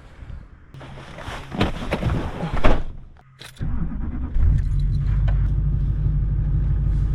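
Motor vehicle running, a steady low rumble that sets in about halfway through, after a few seconds of scattered knocks and rustling.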